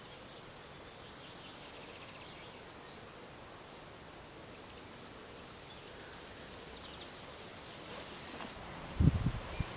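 Breeze rustling in the trees, with faint high bird chirps in the first few seconds. Near the end come a few loud, low thumps.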